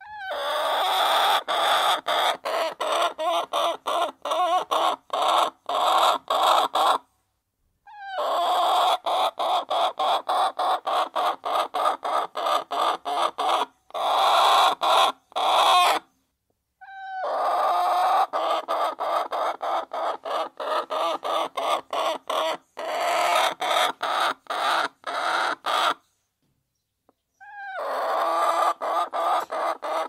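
Domestic chicken hen clucking in quick runs of several clucks a second. Each run lasts several seconds and is broken by short, abrupt silences: one about a third of the way in, one about halfway, and one near the end.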